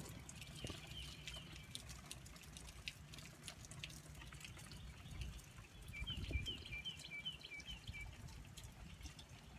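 Faint rain dripping, over a low rumble. Two runs of quick, repeated high chirps from a calling animal come through, one near the start and a longer one a little past the middle.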